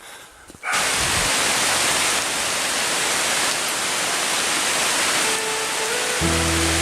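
Steady rain falling, an even hiss that starts suddenly just under a second in. Background music comes in near the end.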